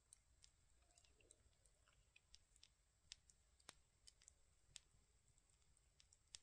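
Faint crackling of a small campfire: irregular sharp snaps, a few each second, over near silence.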